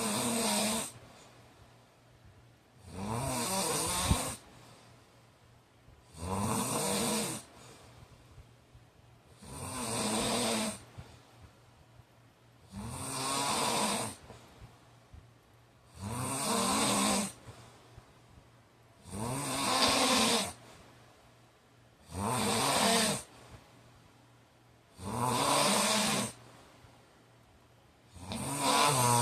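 A sleeping man snoring loudly and regularly, one snore about every three seconds, each lasting a little over a second.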